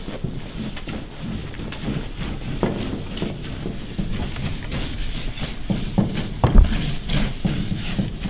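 Paper posters being pressed and smoothed by hand onto billboard panels: rustling with irregular knocks, the loudest about six and a half seconds in.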